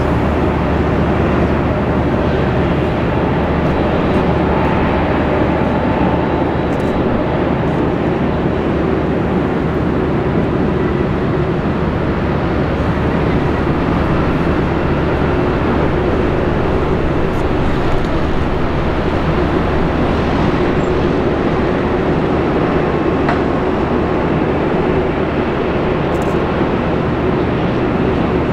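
Airbus A380 jet engines running with a steady, even rumble, without any clear rise in power.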